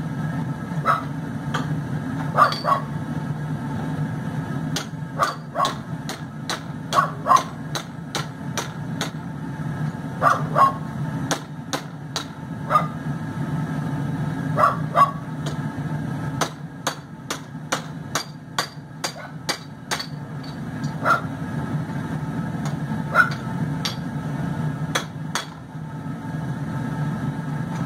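Hand-hammer blows on hot steel on an anvil, irregularly spaced single strikes and short runs, some ringing briefly, while forging a tong blank. Under them the forge runs with a steady low rumble.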